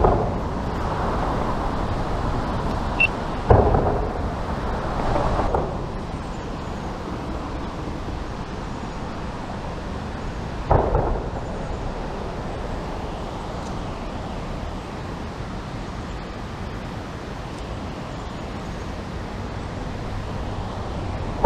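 Creek water rushing steadily over a waterfall, with a few short knocks, about three and a half and eleven seconds in.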